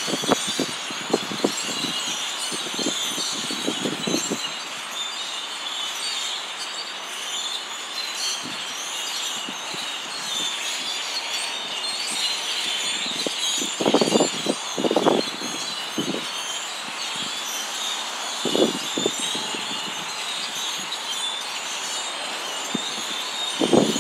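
A big flock of birds in the trees, chattering and chirping all at once in a dense, continuous wash of overlapping calls. A few short low bumps break in now and then, the loudest around the middle.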